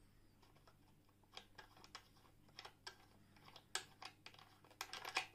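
Faint, irregular small clicks and taps from the metal parts of an antique L.O. Dietrich Vesta hand-crank sewing machine being handled, coming closer together and louder near the end.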